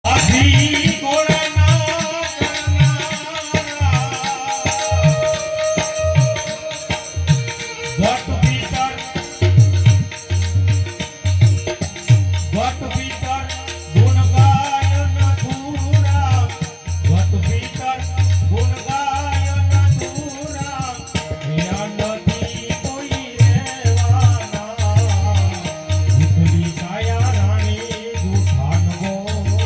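Devotional bhajan singing with live percussion: a voice singing a melody over a steady low drum beat and rattling hand percussion.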